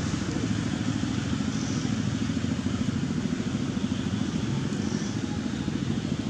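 An engine running steadily with a rapid low pulse.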